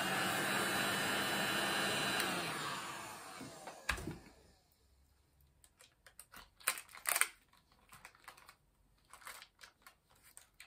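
Heat gun blowing steadily, then switched off about two seconds in and spinning down. A single knock follows as it is set down, then quiet crinkling of greaseproof paper as hands press and smooth it around the wax candle.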